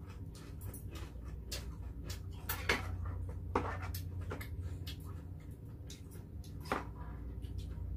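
Chopsticks and spoons clicking and clinking against stone soup pots and side-dish plates during a meal: scattered light clicks, with three louder clinks spread through, over a steady low hum.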